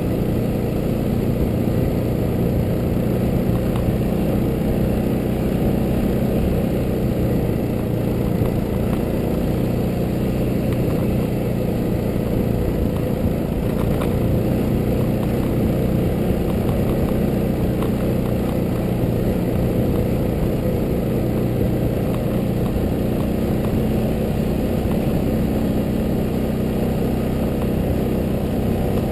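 Yamaha Ténéré motorcycle engine running steadily at an even pace on a dirt road, mixed with wind and tyre noise.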